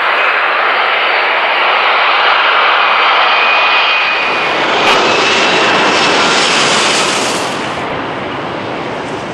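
Jet airliner passing close by with a loud engine whine over the rush of its jets. It fades off a little after halfway.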